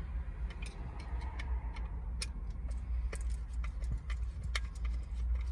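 Irregular light clicks and taps from small screws and plastic switch-panel parts being handled, over a steady low hum.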